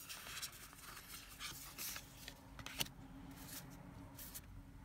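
Tarot cards being moved by hand on a woven cloth: a string of soft rustles and scrapes of card stock sliding, with one sharp tap just before three seconds in.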